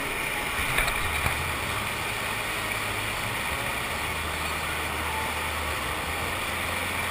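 A standing-wave surf simulator, with water pumped up its padded slope in a steady, even rush and a low drone underneath.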